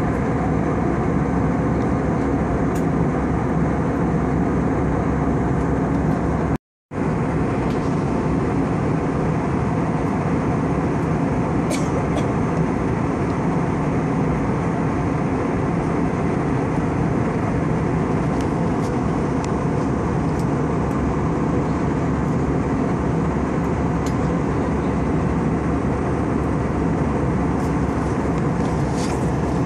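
Steady cabin noise of an Airbus A320 airliner in flight, heard at a window seat: the jet engines' drone and the rush of air along the fuselage. A brief gap of silence about seven seconds in.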